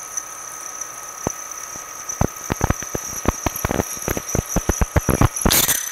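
Atrump variable-speed vertical milling machine drilling into a metal block under power quill feed: a steady high whine from the running machine, with a run of irregular sharp ticks and snaps as the drill cuts, and a short burst of hiss near the end.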